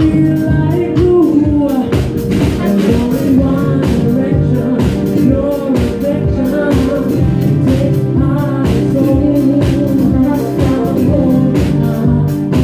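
Live band playing a song: a male singer over strummed acoustic guitar, electric bass and drum kit, with a steady beat.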